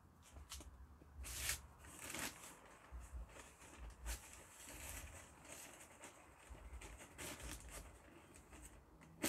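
Plastic bags of garden mix rustling and crinkling as they are handled, in irregular bursts, loudest about one and a half and two seconds in, with a sharp click at the very end.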